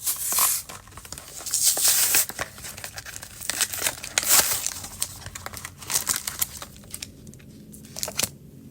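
A plastic Pokémon card blister pack being torn open by hand, crinkling and tearing in irregular bursts, the loudest near the start, about two seconds in and about four seconds in, thinning out toward the end.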